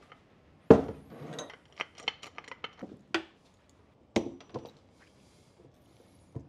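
Metal clicks and clinks from pliers working at the boot of a Porsche 997 Turbo drive axle and from the handled axle itself, its inner CV joint wrecked. There is a sharp clack under a second in, then scattered clicks, a cluster around two to three seconds, a few more past four seconds, and one near the end.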